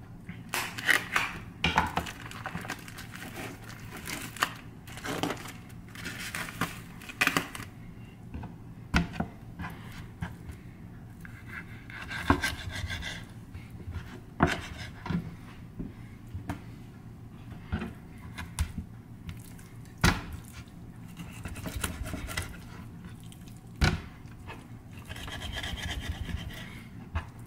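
Kitchen knife at work on raw chicken leg quarters: first slitting the plastic wrap on a foam tray, then cutting and trimming the meat on a plastic cutting board. Irregular sharp taps and knocks of the knife and meat against the board, with rubbing and scraping between them.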